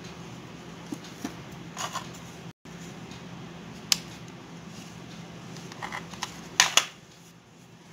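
Light clicks, taps and crinkles from small pieces of satin ribbon being handled and pressed against a tabletop. They come scattered, with the loudest a quick double click near the end, over a steady low hum.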